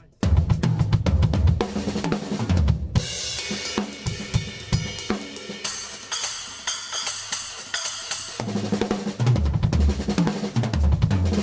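Drum kit played fast in 5/4 at 220 BPM: quick interlocking groupings of hand strokes and bass drum. From about three seconds in to past eight seconds the playing moves onto cymbals and hi-hat, with lighter kick, then returns to drums and bass drum.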